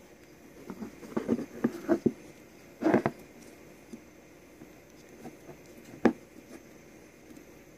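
Scattered clicks, taps and knocks of hands handling the plastic case and parts of a 14.4 V drill battery pack. A quick cluster comes about a second in, a louder knock at about three seconds, and a single sharp click about six seconds in.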